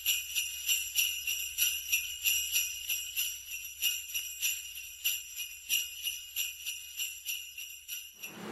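Jingle bells shaken in a steady rhythm, about three shakes a second, stopping just before the end.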